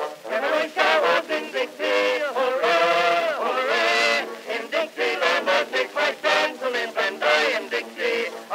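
Background music with a prominent melody line whose notes change every fraction of a second.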